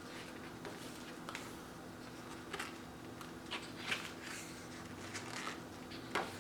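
Pages of a glossy photo booklet being turned and handled: scattered soft paper rustles and light taps over a faint steady hum.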